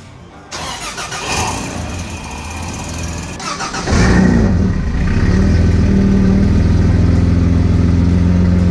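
Toyota 1FZ-FE 4.5-litre straight-six cranking on the starter for about three seconds, then catching, revving up briefly and settling into a steady run. This is the first start of the freshly rebuilt engine, and it fires up right away.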